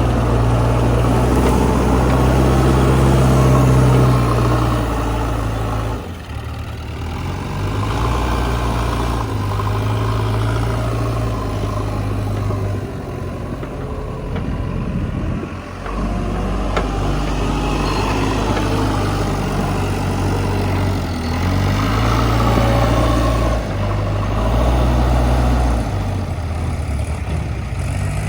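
Diesel engine of a JCB 3DX backhoe loader running under changing load while digging and loading, its note stepping up and down again and again, with two brief drops in level.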